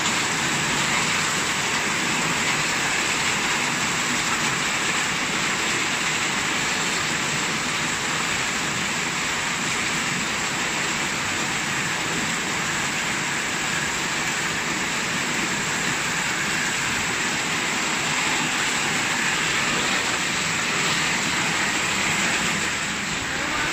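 Heavy typhoon rain pouring steadily onto a flooded street, a constant unbroken hiss.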